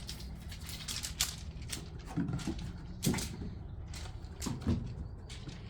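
A pet cat's coughing fit: three harsh, throaty hacks, about two, three and four and a half seconds in.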